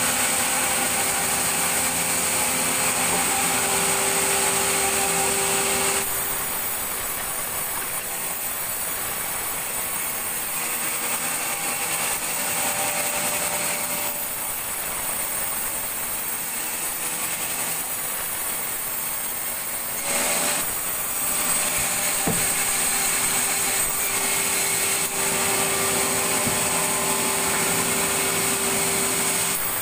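Sawmill saw running and cutting through timber, a continuous machine drone with a steady pitch. It eases off a little about six seconds in and picks up again about twenty seconds in.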